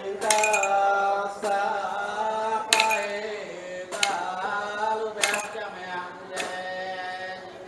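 A man chanting an Iban timang ritual chant, holding long drawn-out notes that glide slowly in pitch. A sharp clink sounds roughly every second and a quarter.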